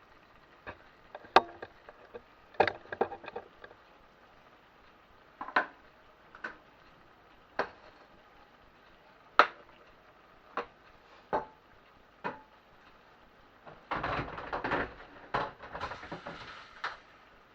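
Kitchen clatter: a dozen or so separate knocks and clicks of utensils against crockery and pans, then a busier run of clattering near the end.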